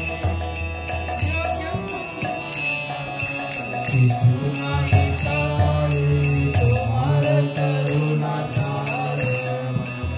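Devotional bhajan: a man's solo voice singing over sustained harmonium chords, with small hand cymbals (kartals) ringing out a steady beat.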